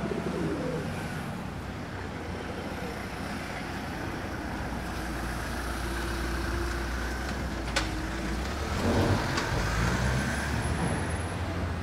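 Road traffic with a heavy vehicle's engine rumbling past, growing louder through the middle and loudest about nine seconds in. A single sharp click cuts through just before the peak.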